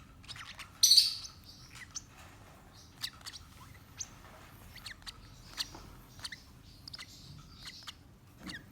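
Baby parrot chicks giving short, high chirps scattered through, with one louder, harsher burst about a second in.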